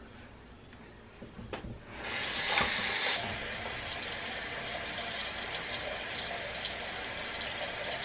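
A few small clicks, then a water tap running into a sink: it starts suddenly about two seconds in, strongest for the first second, then runs steadily.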